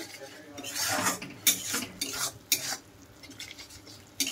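Spatula scraping and stirring thick masala paste around a kadhai, a quick run of scratchy strokes about a second in, then quieter: the spice paste being fried (bhuna) with a little water.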